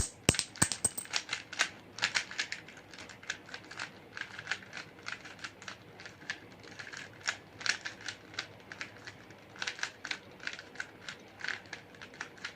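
A plastic Rubik's Cube being turned by hand: quick runs of clicking and clacking as its layers snap round, with the loudest clacks near the start. The turns carry out the yellow-corner orientation algorithm, the last step of a beginner's-method solve.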